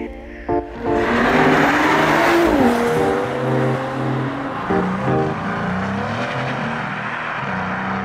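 A sports car accelerating past at speed, engine pitch climbing and then falling. The exhaust noise is loudest in the first few seconds and then eases off, with background music underneath.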